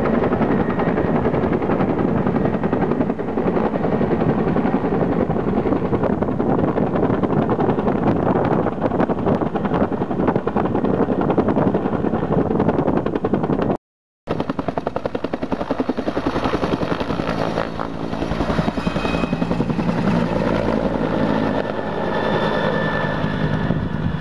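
Helicopter running close by, its rotor making a loud, steady, rapid chop. The sound cuts out for a moment about fourteen seconds in, then carries on with a higher whine over the chop.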